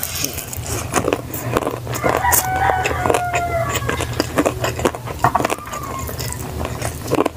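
Close-up eating sounds of chewing and small clicks, with a rooster crowing in the background: one drawn-out call about two seconds in and a shorter one about five seconds in. A steady low hum lies underneath.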